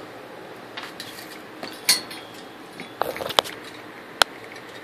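Several separate sharp clicks and clinks of power cables and plug connectors being handled.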